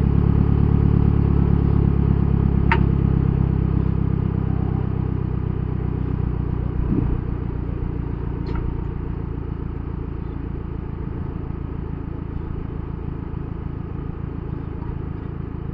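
An off-road vehicle's engine running steadily at low revs, slowly getting quieter, with two faint clicks.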